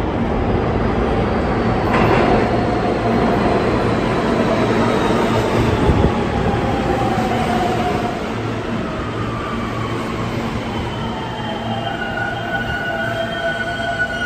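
R160B subway train with Siemens propulsion pulling into an underground station and braking: a loud rumble of steel wheels on rail, with the propulsion's electric whine falling in pitch as it slows. Near the end the rumble eases and a few steady higher tones remain as the train comes almost to a stop.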